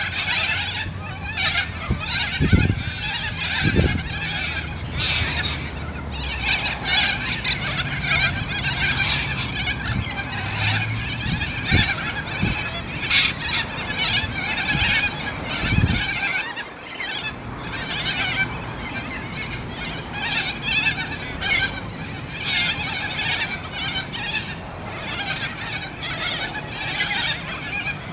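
A large flock of corellas screeching, many harsh calls overlapping into a constant din. A few low bumps come through near the start and about halfway through.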